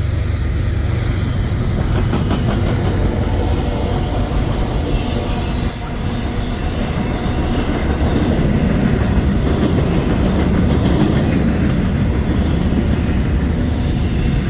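Union Pacific freight train rolling past, its wheels clicking steadily over the rail joints.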